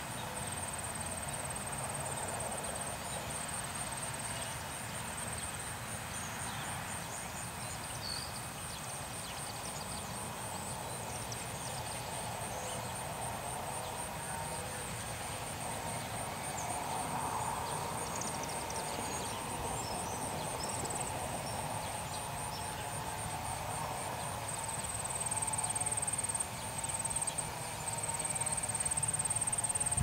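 Insects, crickets or similar, trilling steadily in a high, fast-pulsing chirr over a low outdoor rumble; the trill gets louder for the last few seconds.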